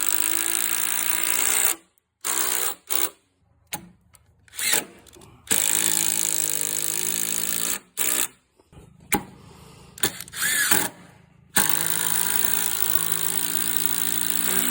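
Makita 40V XGT cordless impact driver driving 5/16 x 3-1/8 GRK RSS structural screws, its motor whining under the rapid hammering of the impact mechanism. It runs in three long pulls of the trigger of about two to three seconds each, with short bursts and pauses between them.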